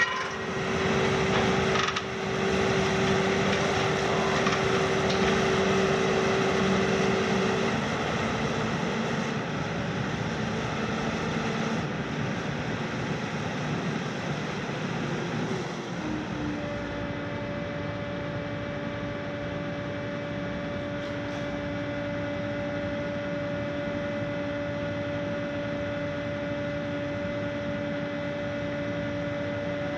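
Hitachi KMC 380 S long-front demolition excavator running, its diesel engine and hydraulics giving a steady drone with a whine, with a few knocks in the first couple of seconds. About halfway through, the sound drops a little in level and settles into a steady lower hum with two held tones.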